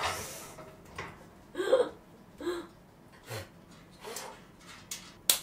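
A woman's short breathy gasps and small vocal noises, spaced a second or so apart, with a sharp click or smack near the end.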